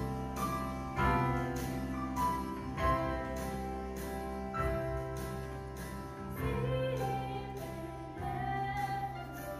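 A small live band plays a song: a female voice sings over a Yamaha electronic keyboard and an acoustic guitar, with a steady beat a little under two per second.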